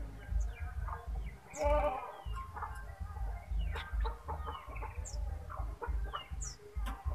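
Spotted dove (tekukur) cooing in low, wavering notes, loudest about one and a half seconds in, with small birds chirping high and quick throughout.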